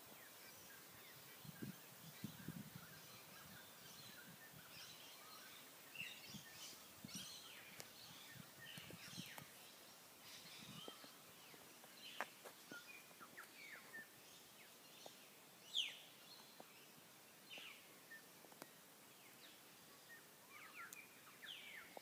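Several birds calling faintly in garden trees, with scattered short chirps and quick downward-sweeping notes. A few soft low thumps sound in the first few seconds.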